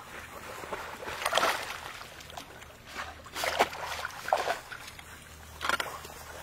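Water splashing and sloshing in a few short bursts as a dog moves through the shallows at the river's edge.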